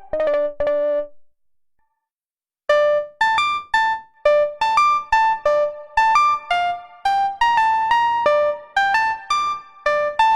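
Waldorf Pulse 2 monophonic analog synthesizer playing a plucky, electric-piano-like preset. A few short notes sound in the first second, then a pause of over a second. Nearly three seconds in, a quick melodic run of short single notes begins, about three a second.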